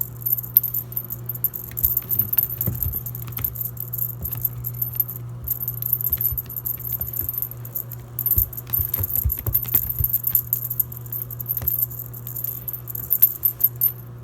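Washing machine running with a steady low hum, under a high, light jingling rattle that comes and goes, and a few scattered knocks and taps.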